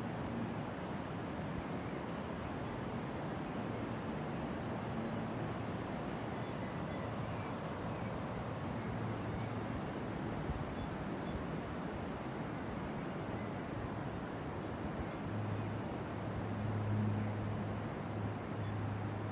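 Steady rush of the South Esk River's fast, foam-streaked water. A low hum swells in the last few seconds.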